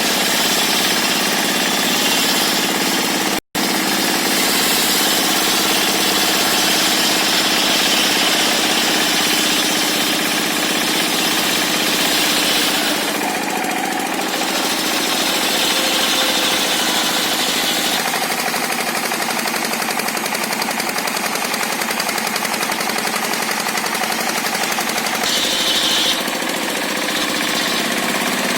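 Engine-driven circular sawmill running and ripping hard timber: a steady, loud mechanical din with the blade's cutting noise shifting now and then. The saw blade has never been filed, so the machine labours through the tough wood. The sound cuts out sharply for a split second a few seconds in.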